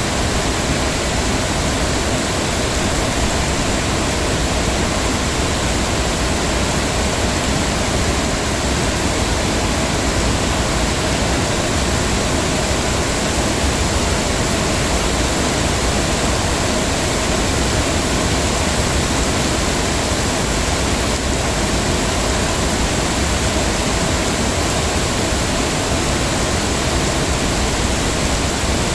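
Heavy rain falling steadily, an even hiss of drops with no breaks or single impacts standing out.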